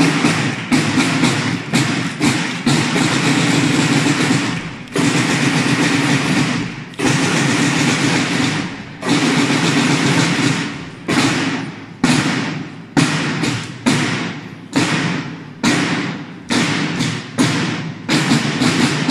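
A line of marching snare drums playing a cadence: rapid strokes, then long stretches of continuous drumming, then a run of sharp accented strokes, each fading away before the next.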